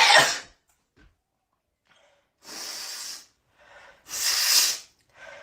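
A woman in a fit of sneezing she can't stop: a loud sneeze right at the start, breathy sounds in between, then another loud sneeze about four seconds in.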